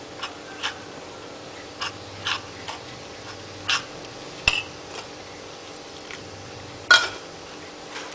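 A metal spoon stirring thin flour batter in a ceramic bowl, knocking and clinking against the bowl's side at irregular intervals, with the loudest clink about seven seconds in.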